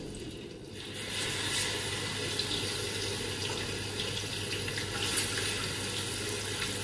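Pieces of marinated pork sizzling in hot fat in a large aluminium pot: a steady hiss that swells about a second in as the meat goes into the fat.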